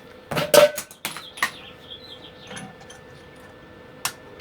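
Small metal parts and tools being handled in the workshop: a quick run of knocks and clicks in the first second and a half, some light scraping, and a single sharp click near the end.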